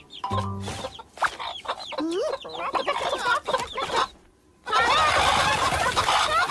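Cartoon hens clucking and squawking together, many wavering calls overlapping. After a short lull, a loud flurry of frantic squawking and scuffling noise breaks out near the end, with feathers flying in a cloud of dust.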